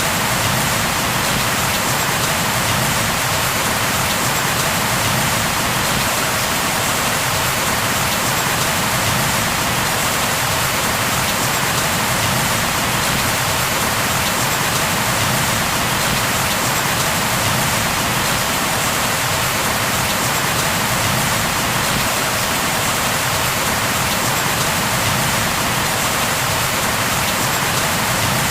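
Steady, heavy rain falling, a dense even hiss of drops hitting surfaces with no thunder or other distinct events.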